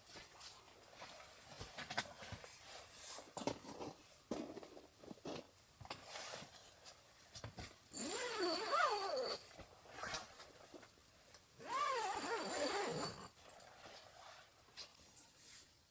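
Two drawn-out whining sounds with a wavering pitch, an animal's whine, about eight and twelve seconds in, among small scattered knocks and rustles.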